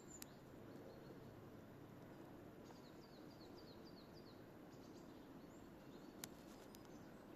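Faint songbird singing in the distance: a quick run of short, falling high notes, about four a second, from about three seconds in. A single sharp click about six seconds in.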